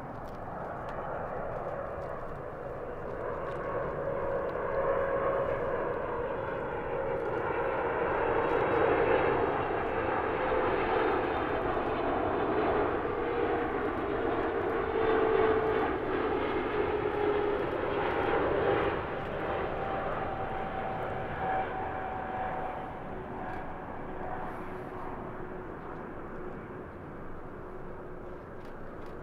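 Japan Airlines Boeing 777-300ER's GE90 turbofan engines on final approach. The jet noise swells as the airliner passes, carrying a whine that slowly falls in pitch; it drops off abruptly about two-thirds of the way through and then fades as the plane descends toward the runway.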